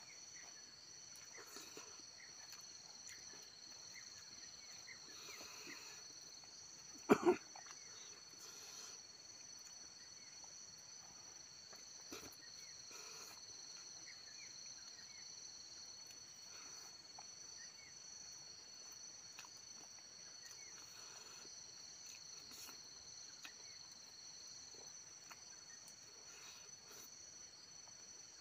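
Insects chirring steadily in a high, two-pitched drone. Faint ticks and rustles of eating by hand from a banana leaf, with one brief, louder double sound about seven seconds in.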